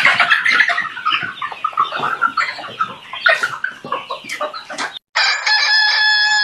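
A flock of chickens clucking and squawking, many calls overlapping. About five seconds in the sound breaks off, and a steady high tone made of several held pitches begins.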